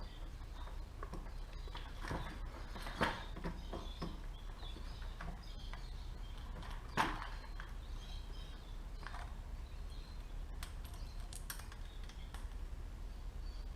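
Scattered light clicks and knocks of hand tools and carburetor parts being handled during carburetor removal on a 1970 Honda SL100. Two sharper clicks stand out, about three and seven seconds in, over a low steady hum.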